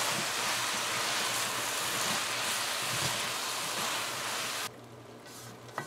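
Eggplant and eddo sizzling in hot oil in a wok as they are stirred, a steady frying hiss. About three-quarters of the way through, the sizzle cuts off suddenly, leaving a much quieter background with one faint click.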